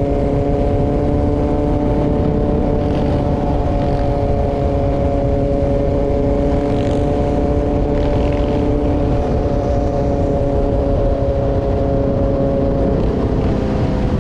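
Dirt bike engine running at a steady speed under way, its pitch easing down a little near the end, with low rumbling wind noise on the microphone.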